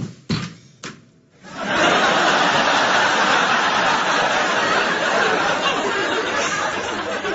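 Sitcom audience laughter, a laugh track that breaks out about a second and a half in and carries on steadily, after a few brief sounds at the start.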